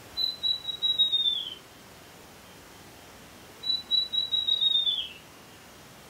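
Chestnut-tailed antbird singing twice. Each song is a quick series of high whistled notes about one and a half seconds long, holding steady in pitch and then dropping at the end.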